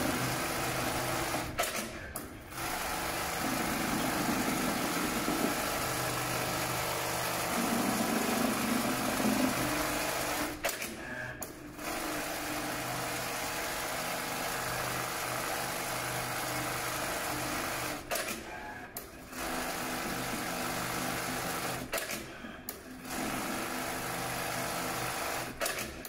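BAS-342G programmable pattern sewing machine stitching leather at speed, a steady rapid mechanical chatter. It stops briefly several times between runs.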